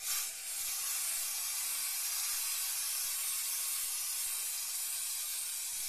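Aerosol can of Crafter's Companion Stick Away adhesive remover spraying onto a cutting mat: a loud, steady hiss that starts suddenly and is held without a break.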